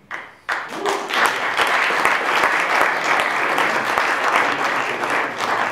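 Audience applauding: a short burst just after the start, then full clapping from about half a second in that holds steady.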